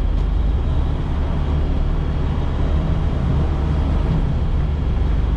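Steady low drone of a semi truck's diesel engine and road noise, heard from inside the cab while driving.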